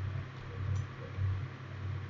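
Steady low electrical hum with hiss in the recording's background. A faint tap or two of computer keyboard typing sits on top.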